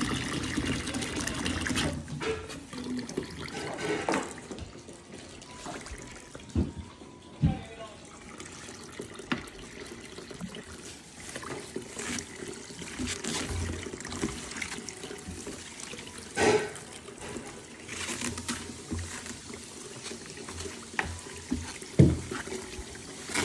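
Water sloshing and trickling in a plastic-lined foot-soak tub as herbal powder is tipped in and stirred by hand, with the plastic liner crinkling. Several sharp knocks or splashes break through, the loudest near the end.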